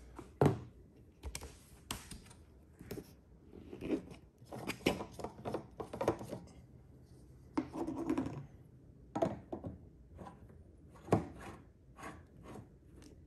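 Plastic ATV gas cap being unscrewed by hand and an aftermarket cap threaded onto the filler neck: a run of irregular clicks and scrapes, about one every second.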